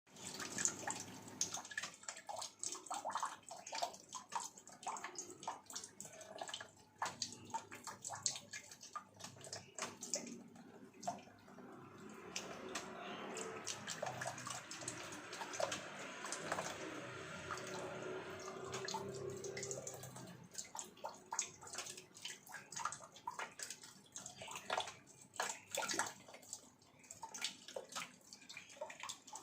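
Thin stream of water running from a tap, broken into quick irregular splashes and drips as a cat laps at it. In the middle the water runs more steadily for several seconds.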